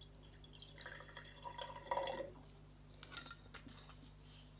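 Liquid poured from a bottle into a glass mason jar, a splashing trickle that stops a little over two seconds in.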